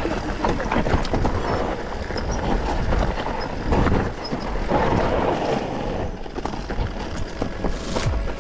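Mountain bike descending a dry, rough trail: tyres crunching over dirt and stones, with the bike rattling and clattering over bumps and a low rumble throughout.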